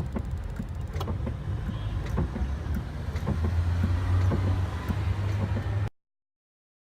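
Kia Sportage clutch pedal pressed and released with the engine switched off: scattered light clicks and knocks over a low steady hum.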